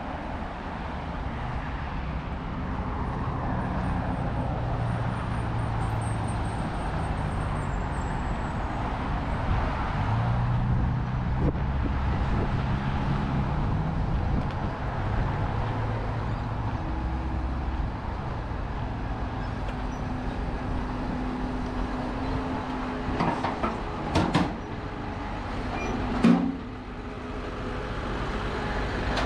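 Road traffic on a multi-lane city road: the engines and tyres of passing vehicles, with a deep engine hum swelling as heavier vehicles go by, and two short sharp knocks near the end.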